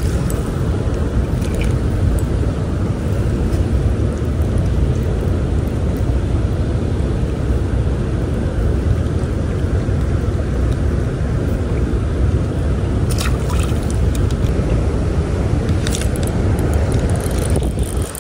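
Steady low rumble of wind buffeting the microphone, with a few faint clicks about two-thirds of the way through and again near the end.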